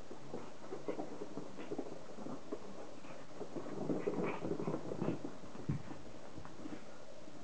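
Scuffling and rustling of paws and fur on a bedspread as a cat and a Pomeranian puppy play-wrestle: many short scratchy rustles, busiest from about four to five seconds in, with a soft thump about six seconds in.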